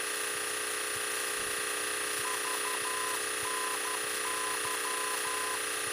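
Small training airplane's piston engine and propeller droning steadily in cruise, heard through the cockpit intercom with a high steady whine. About two seconds in, a run of short and long high beeps plays faintly for about three seconds.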